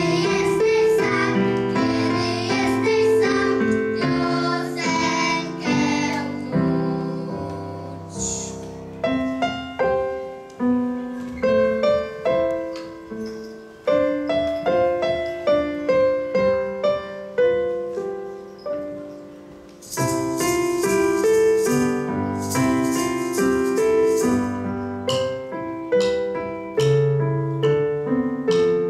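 Children singing with keyboard piano accompaniment. After about eight seconds the singing stops and the keyboard plays on alone. About twenty seconds in, maracas shaking join the keyboard.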